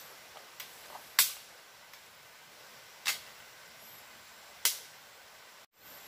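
Three loud, sharp cracks about one and a half to two seconds apart, with a few fainter clicks between, over a steady hiss of forest ambience.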